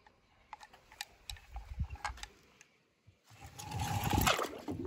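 Light clicks and taps of small toy cars being handled, then a denser rattling clatter from about three seconds in.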